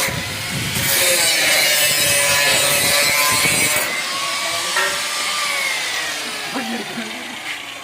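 Electric power tool working metal with a loud, harsh hiss for about four seconds. The trigger is then released and its whine falls steadily in pitch as the motor spins down.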